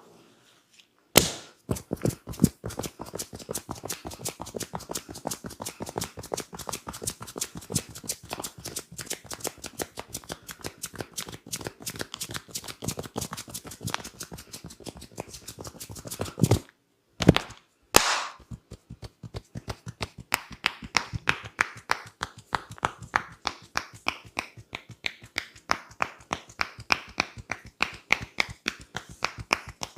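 A barber's hands slapping and chopping in a fast percussive massage, several strokes a second. After a brief pause about two-thirds through come a couple of louder claps, then a steadier run of about four strokes a second.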